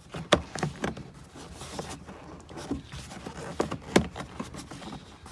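Round plastic seat-latch cover being pressed and worked into a car's plastic interior trim panel by hand: scattered light clicks and scraping, with the sharpest click about four seconds in.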